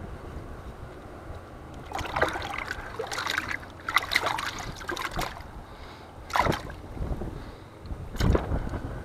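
Water splashing and sloshing in several irregular bursts, about five in all, over a steady low wind rumble.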